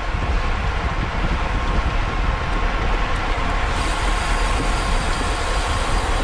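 Wind rushing over the microphone of a road bike racing at speed, over a steady rumble of tyres and road.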